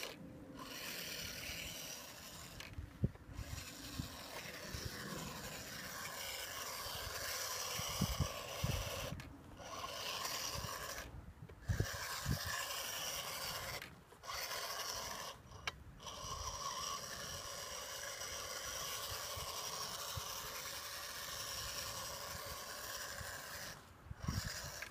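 HSP Kulak RC rock crawler's small electric motor and gearbox whirring as it drives over gravel and stones. The whir cuts out briefly several times, with occasional low knocks of the wheels and chassis on rocks.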